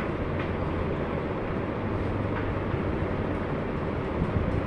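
Steady hum and hiss of room noise, with a few faint taps of chalk writing on a blackboard.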